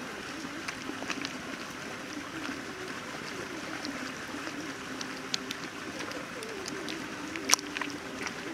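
Wet squishing of hands rubbing thick spice marinade into raw chicken leg pieces on a plastic plate, with a few sharp clicks, the loudest about seven and a half seconds in.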